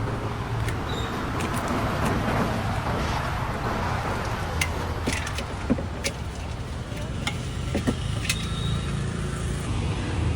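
Street ambience: a steady rumble of passing traffic, with scattered sharp clicks and knocks every second or so.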